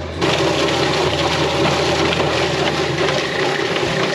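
Yardbird chicken plucker running, its drum tumbling scalded birds against the rubber fingers while a hose nozzle sprays water into it: a steady rushing, spattering noise that comes in suddenly just after the start.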